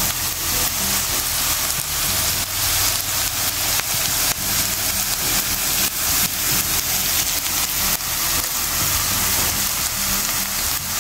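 Tilapia sisig sizzling on the heat: a steady hiss with frequent small crackles.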